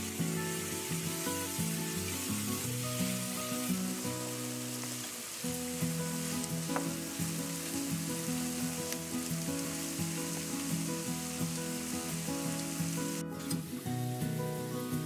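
Food sizzling as it fries in a pan, with background music playing held notes. The sizzle cuts out for a moment about 13 seconds in.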